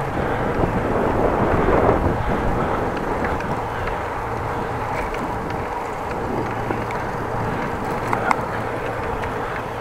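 Steady wind rush on the microphone with the rolling noise of a bicycle riding along a paved road.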